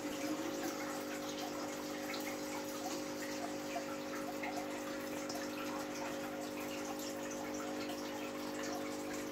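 Small planted aquarium with water bubbling and dripping in many small irregular splashes, over a steady hum.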